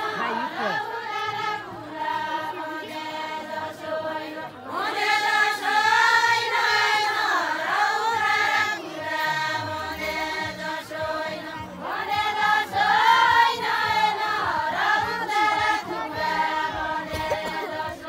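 A group of women singing a folk song together in unison, in long sung phrases, the voices sliding up in pitch as new lines begin about five and twelve seconds in.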